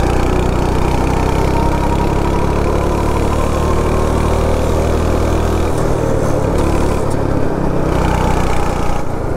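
Go-kart engine running under throttle while the kart is driven round the track, its note dropping and picking up again a couple of times as the driver eases off and accelerates through the bends.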